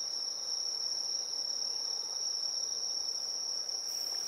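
Steady high-pitched chirring of insects, one continuous cricket-like trill that holds the same pitch without a break.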